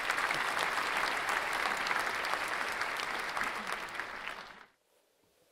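Audience applauding, a dense patter of many clapping hands that dies away about four and a half seconds in.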